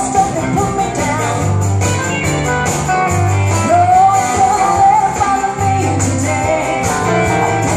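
Live country band playing: a woman sings lead over acoustic and electric guitars, bass and drums, holding a long wavering note about four seconds in.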